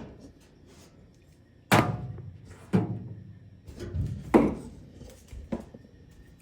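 About five sharp knocks and clunks spread over a few seconds, the loudest two about two and four seconds in: the casing of a portable clothes dryer being handled while it is opened up.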